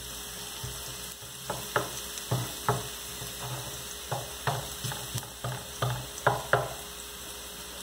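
Chopped garlic sizzling in oil in a nonstick frying pan, stirred with a wooden spoon that knocks and scrapes against the pan about a dozen times.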